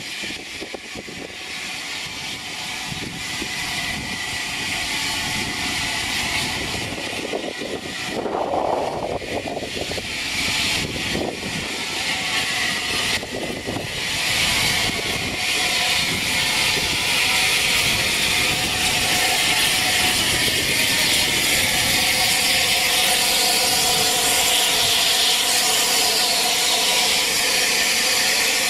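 Bulleid Battle of Britain class steam locomotive 34081 drawing into the station with its train: a steady hiss and rolling rumble that grows louder as it nears, and is loudest from about halfway through as the engine comes alongside.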